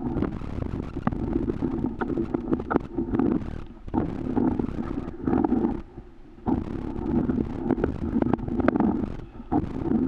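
Wind rumbling and buffeting on the camera's microphone in uneven swells, with scattered crunches of footsteps in snow.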